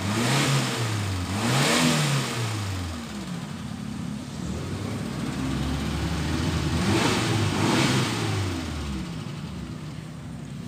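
The 2000 Suzuki Carry Extra's 1.0-litre four-cylinder engine is revved with the throttle. Two quick blips come near the start and two more about seven seconds in, each rising and falling back to a steady idle.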